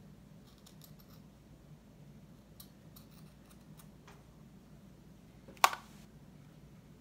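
Scissors snipping felt in a few faint cuts, then one sharp, loud click about five and a half seconds in.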